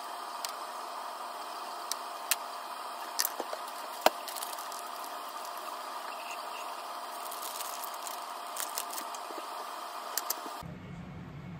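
Chopsticks and small kitchen items clicking and tapping lightly against bento boxes and a small glass dish, a few scattered clicks with one sharper knock about four seconds in, over a steady mechanical hum that switches abruptly to a lower hum near the end.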